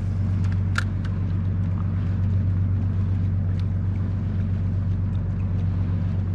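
Steady low hum of the kayak's integrated 45-pound-thrust electric trolling motor running in spot-lock to hold position against the current, with one light click about a second in.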